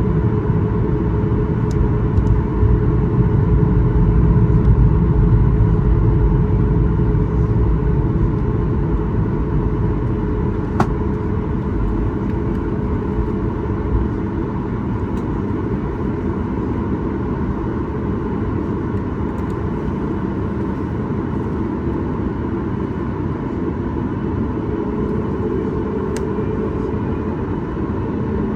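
Boeing 737 MAX 8 cabin noise: the CFM LEAP-1B engines and airflow making a loud, steady rumble with a faint steady hum through it, a little louder a few seconds in and then easing off slightly. A small click about eleven seconds in.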